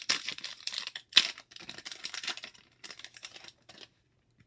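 Foil wrapper of a trading-card pack crinkling while cards are handled: a run of crackly rustles with one sharp crackle about a second in, then it goes quiet near the end.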